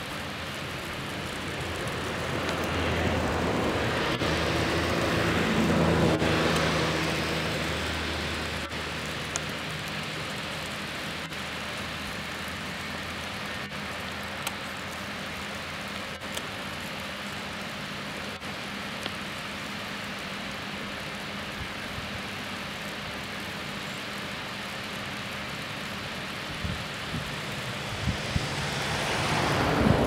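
Steady rushing of a waterfall. A passing vehicle swells up and fades away around four to eight seconds in, and another approaches near the end.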